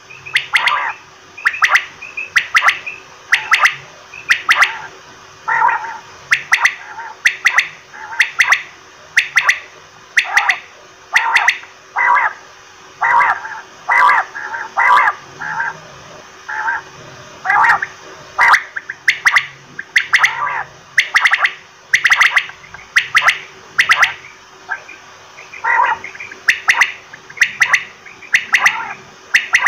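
Quail calling over and over, with short, sharp calls repeated about once or twice a second. A faint steady hum runs underneath.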